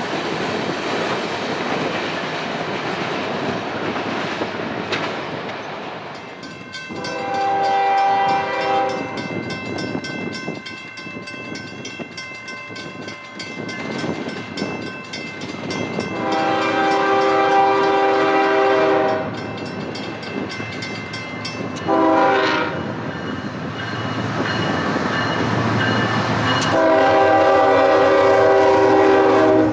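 Rumble of rail cars rolling past, then the air horn of a CSX GE ES44AC freight locomotive sounding the grade-crossing pattern: long, long, short, long. It grows louder as the locomotive approaches, and the last long blast is still going at the end.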